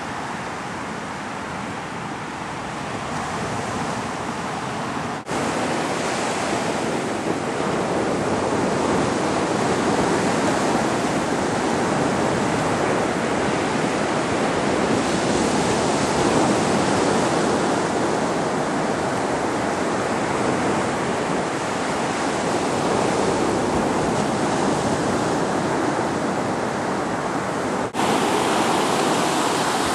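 Sea waves breaking and washing up a sandy beach: a steady rush of surf, which changes abruptly twice where the shots are cut.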